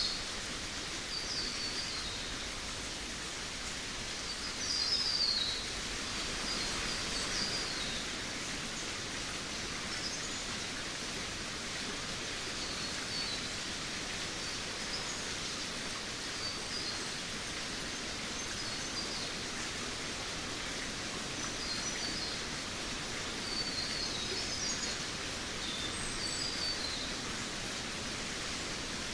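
Jungle ambience: a steady hiss of background noise with birds chirping in short, scattered bursts of high calls every few seconds.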